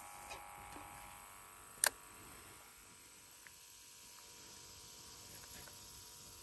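Faint steady background hum, with one sharp click about two seconds in.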